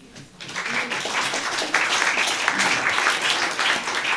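Audience applauding, starting about half a second in and running on steadily.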